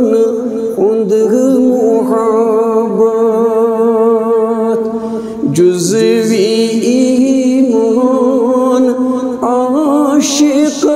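A male voice singing a Kashmiri manqabat in long, drawn-out held notes, with a short break a little past halfway.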